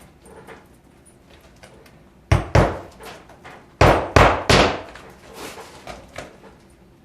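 Hammer driving roofing nails into a replacement dimensional shingle. Two strikes come a little over two seconds in, three louder strikes about a second later, then a few lighter taps.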